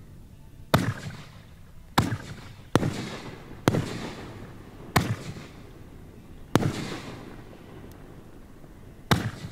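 Display fireworks bursting overhead: seven loud booms at uneven intervals, each trailing off in an echo, with a fainter pop between the last two.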